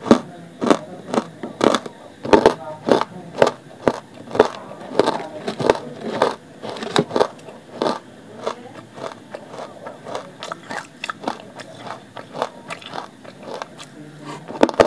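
Hard, dry clay lumps being bitten and chewed close to the microphone: a run of sharp, gritty crunches, one to two a second, with a fresh bite into a new lump near the end.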